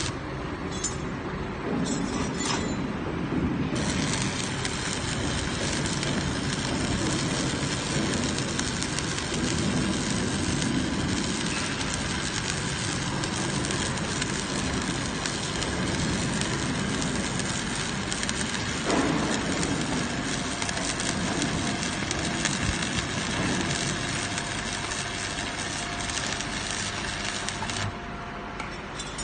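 Electric arc welding: the arc crackles and sizzles steadily as a bead is laid. It strikes up a few seconds in and cuts off near the end.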